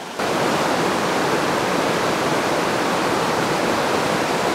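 River rapids rushing, a steady, even noise of flowing water that cuts in suddenly just after the start.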